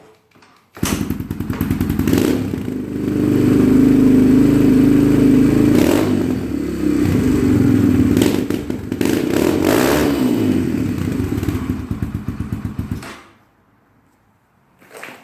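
Yamaha TT-R125LE's 125cc four-stroke single-cylinder engine starting up about a second in, running and being revved several times, then cut off a couple of seconds before the end.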